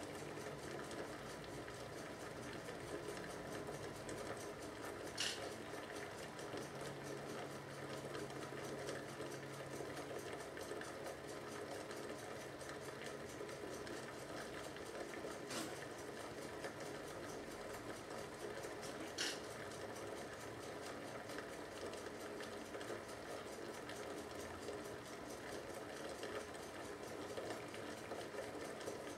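Coconut water boiling inside a sealed coconut shell, heated by 240-volt mains current passed through electrodes, as pressure builds inside: a steady busy bubbling noise with three sharp cracks spread through it.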